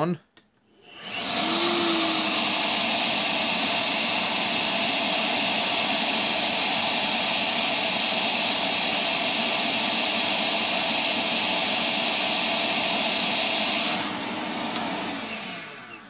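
Milwaukee M12 FUEL 1.6-gallon wet-dry vac's brushless motor, filter removed, switched on at its low speed setting about a second in, spinning up quickly and then running steadily with a rush of air drawn through the hose. Near the end it is switched off and winds down with a falling pitch.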